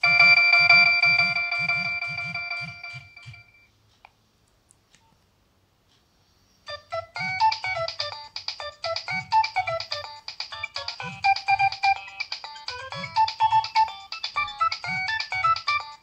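Nokia 3100 mobile phone playing polyphonic ringtones through its small speaker. A held chord fades out over the first three and a half seconds, a few faint clicks follow, and about seven seconds in a new ringtone starts: a quick melody of short notes.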